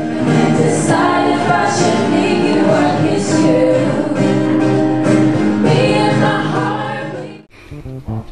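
A song with several voices singing together over backing music, fading out about seven and a half seconds in.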